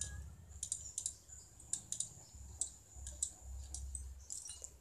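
Irregular light clicks and taps of thin tempeh slices and a knife being handled on a plastic cutting board, with a short cluster of clicks near the end.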